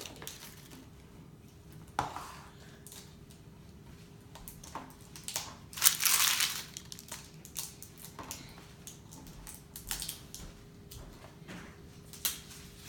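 Handling of a Play-Doh set's plastic tubs and tools: scattered clicks, knocks and crinkling, with a louder crunching rustle about six seconds in.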